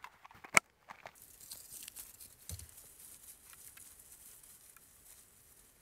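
Dry tinder and fatwood scrapings crinkling and crackling as they are handled by hand, with a single sharp click about half a second in.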